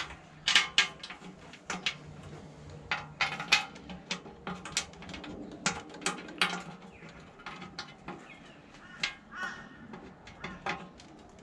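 Sharp metallic clinks and taps of nuts, bolts and tools being handled against a steel sump pan on a V8 engine block, the loudest ones about half a second in. Birds call a few times in the background.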